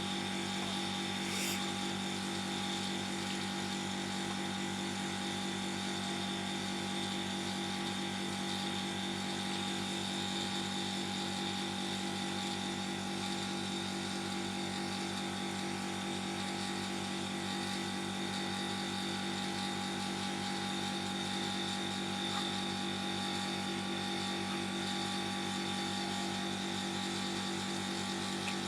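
Small electric motor running steadily: a constant hum with a fast, even rattle.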